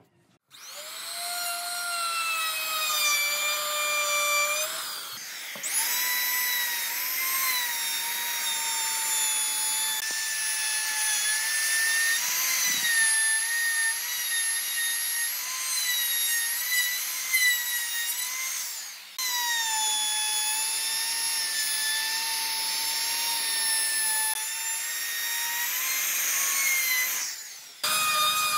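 Electric wood router running at high speed and cutting into a pine beam: a steady high whine whose pitch dips slightly as the bit bites. It stops and restarts a few times.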